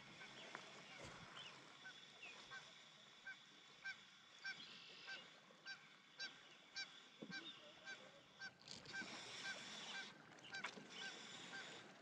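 A bird honking repeatedly. The short, even calls come nearly two a second, from about two seconds in until about eight seconds.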